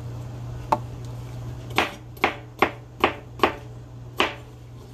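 Chef's knife slicing bell pepper on a plastic cutting board: the blade knocks sharply on the board seven times, once alone a little under a second in, then six cuts about every half second.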